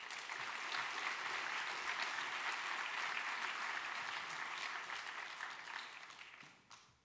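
Audience applauding: steady clapping from many hands that starts at once and dies away over the last second.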